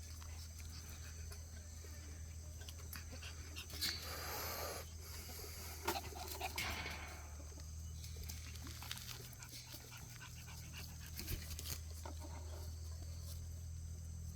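Jindo puppies playing: faint scuffling with a few short noisy bursts about four seconds in and again around six to seven seconds, over a low steady hum.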